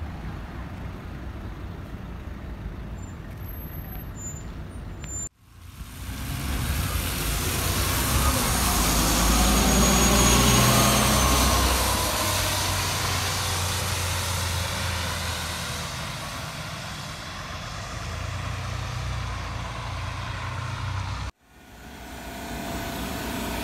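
City bus diesel engines running as buses pull away and pass, with a low engine drone that swells and fades and a steady hiss of tyres on a wet road. The sound breaks off abruptly twice as one passing bus gives way to another.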